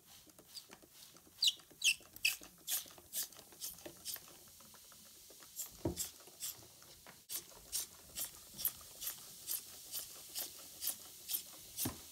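Hand trigger spray bottle squirting vinegar in short, quick pulls, about two a second, with a couple of dull knocks in between.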